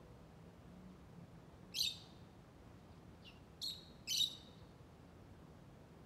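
Lovebird giving short, shrill chirps: one about two seconds in, then three in quick succession about a second and a half later, the last the loudest.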